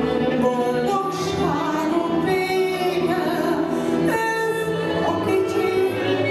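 A woman singing a Hungarian nóta into a microphone, backed by a Gypsy band of violin, cimbalom, clarinet and double bass.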